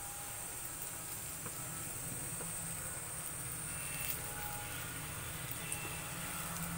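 Gram-flour-coated potato slices shallow-frying in oil on a low flame: a steady, soft sizzle with a few small crackles, over a low hum.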